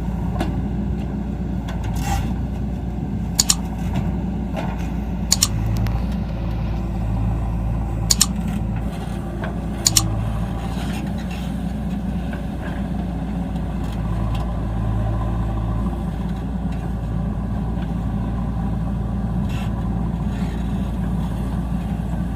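Heavy vehicle's diesel engine running steadily, with five sharp clicks in the first ten seconds.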